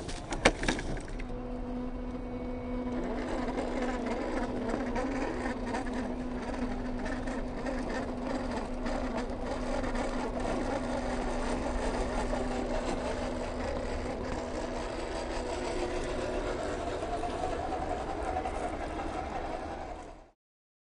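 Small RC crawler's electric motor and gearbox whining steadily as the 1/12-scale MN128 Jeep climbs over rock, with a grinding texture from the drivetrain and tyres on the surface. The sound fades out near the end.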